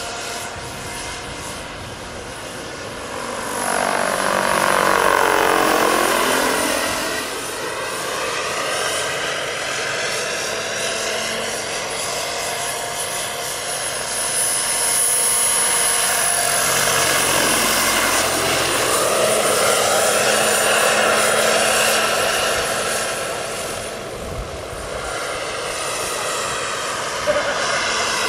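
Giant RC scale model Alouette III helicopter flying with its turbine running, a high steady whine over the rotor and engine noise. It swells and its pitch sweeps down as it passes close about four seconds in, then swells again through the middle as it comes round once more.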